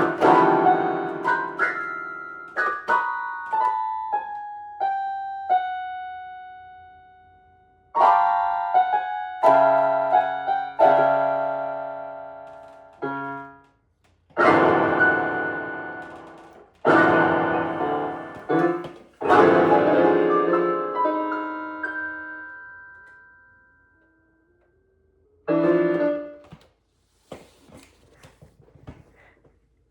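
Piano played in loud struck chords left to ring out, with a falling run of single notes in the first few seconds. After a pause there is one last chord a few seconds before the end, followed by faint small knocks.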